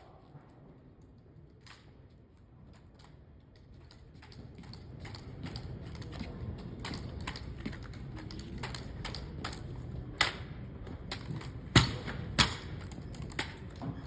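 Sharp clacks and slaps of a drill rifle being caught and struck by hand in an armed exhibition drill routine. They are sparse at first, then come thick and irregular, with a few much louder cracks in the second half, over a low background rumble.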